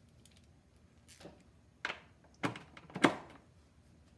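Icon inch-pound torque wrench being handled and fitted onto a torque tester's square drive: a few separate metal knocks and clatters, the loudest about three seconds in, with a short ring after it.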